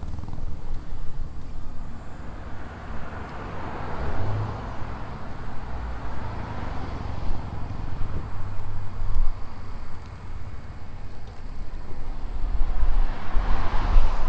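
Outdoor ambience: a steady low rumble with traffic noise swelling and fading three times, about four, seven and thirteen seconds in, like vehicles passing on a road.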